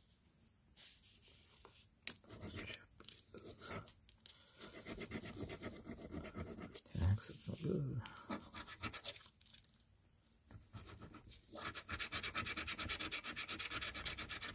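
A coin scratching the coating off a lottery scratch-off ticket in runs of quick short strokes with brief pauses. A brief low, voice-like sound about halfway through is the loudest moment.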